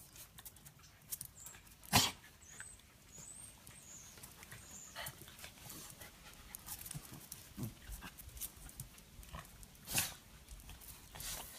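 Several small dogs play-fighting: scattered scuffling and small dog noises, with two short sharp sounds, one about two seconds in and one near the end.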